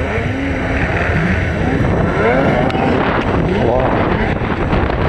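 Racing snowmobile engines revving up and down as the sleds take the snocross jumps, with the pitch rising and falling again and again.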